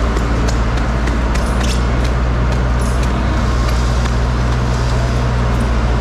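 Steady low hum of running machinery, with scattered light clicks and knocks as crushed ice and foam boxes are handled.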